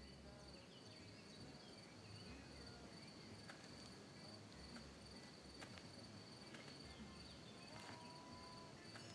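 Faint evening ambience of crickets: a steady high trill with a few scattered short chirps and faint clicks.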